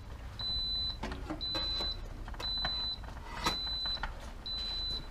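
Instant Pot electric pressure cooker beeping: a steady high beep about half a second long, repeating about once a second, five times. It signals that the pressure-cooking time has ended and the cooker has switched to keep-warm. A few faint clicks come in between.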